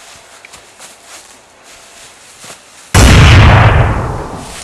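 An explosion sound effect goes off suddenly and very loud about three seconds in: a deep boom that dies away over about a second and a half. Before it there are only faint rustles.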